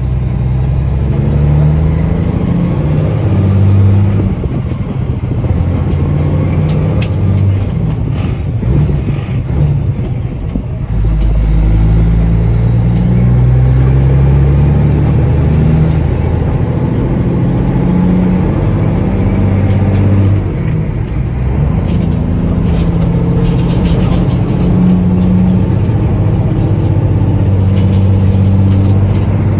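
Cummins ISX15 inline-six diesel in a Peterbilt 389 pulling hard on the highway, heard from inside the cab. The engine note eases off and picks up again a few times, and a faint high whistle rises and falls over it.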